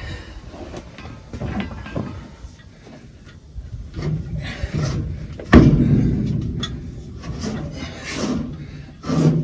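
Metal tools and parts knocking and scraping during a round-baler bearing repair, with one loud clank about halfway through that rings briefly and another knock near the end.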